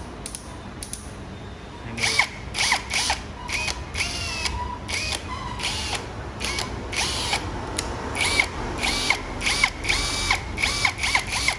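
Cordless drill running on an 18V Makita-type battery in short trigger pulls, the motor whine rising and falling with each pull, many times over. A few light clicks come before the first pull.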